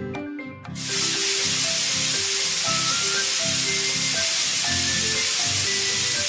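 Cartoon paint-spray sound effect: a loud, steady hiss that starts about a second in, over light background music.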